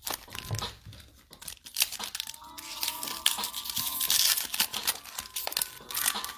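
Foil wrapper of a trading card pack crinkling and tearing as it is opened and handled, in quick, irregular crackles that are busiest in the second half.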